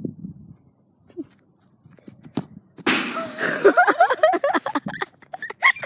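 A single sharp thwack of a soccer ball being kicked about two and a half seconds in, followed by loud wordless yelling and exclaiming voices.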